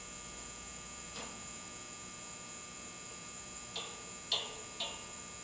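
Steady electrical hum, with a few light clicks from handling a small steel piece and a marker: one about a second in and three close together near the end.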